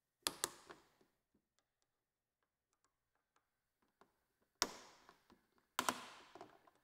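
Faint, sharp clicks and taps of a small hand tool on the motorcycle's left clip-on and switch pod. Two quick clicks come right at the start, then two louder ones about a second apart near the end, each trailing off briefly.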